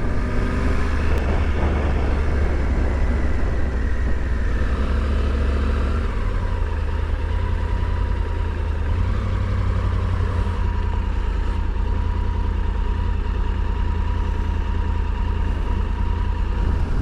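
Motorcycle running on the road while being ridden, a steady low engine rumble with road noise; the engine note shifts slightly about six seconds in.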